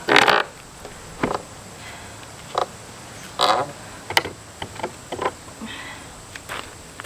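Pallet boards being pried off the stringers with a pallet buster: a string of short creaks and squeals from nails being pulled out of the wood, with sharp cracks in between, about one a second. The loudest creak comes right at the start.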